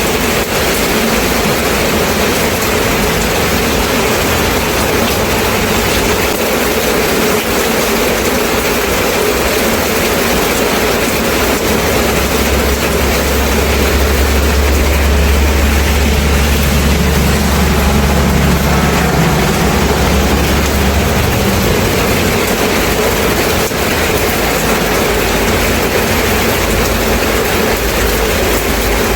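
Steady rain falling, an even hiss. A low rumble comes in about twelve seconds in and dies away after about twenty seconds.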